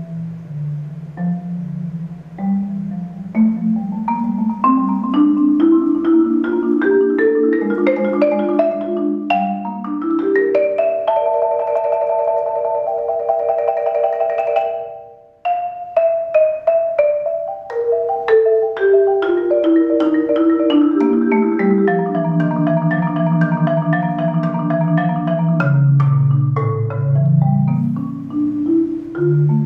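Concert marimba played with four mallets: fast runs of notes climbing upward, a held rolled chord, a brief break about fifteen seconds in, then runs falling back down into the low register.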